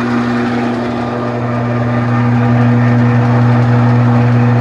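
Enco 405G metal lathe running steadily under power, a constant motor hum with gear noise from headstock gears that are cleaned but not yet lubricated. A vibrating sheet-metal door adds a steady buzz that stops near the end.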